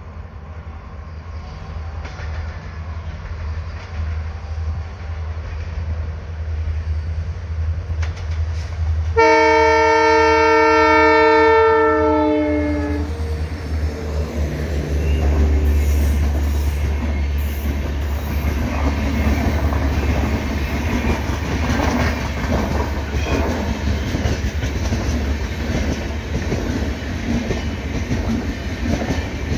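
Bangalore City–Jodhpur Superfast Express running through the station at speed: a low rumble builds as it approaches. About nine seconds in, the locomotive sounds a horn for about four seconds, and its pitch drops as the engine passes. The coaches then rush by with a steady rumble and wheel clatter.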